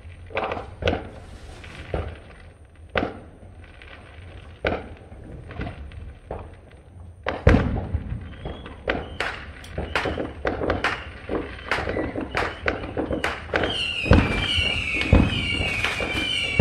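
Neighbourhood fireworks going off: scattered single bangs at first, then from about halfway a loud, dense run of crackling pops and booms. A wavering high whistle joins in near the end.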